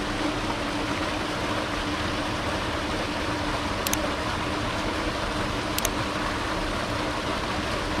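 Small woodland waterfall splashing into a rocky pool: a steady rush of falling water.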